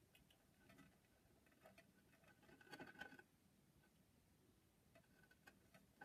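Near silence: room tone with faint scattered ticks and a brief soft rustle about halfway through.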